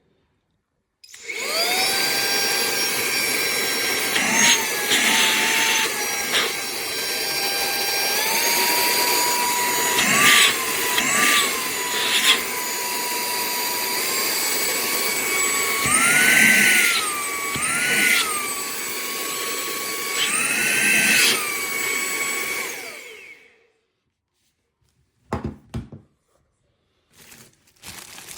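Higoom 4-in-1 cordless handheld vacuum cleaner switched on. Its motor whines up about a second in and runs with a high whine. The pitch steps up twice and swells briefly several times, then it spins down and stops near the end. A few light knocks follow.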